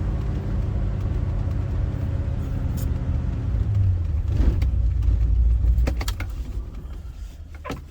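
Land Rover engine and road noise while driving: a steady low rumble that grows a little louder midway, then dies down near the end, with a few light clicks.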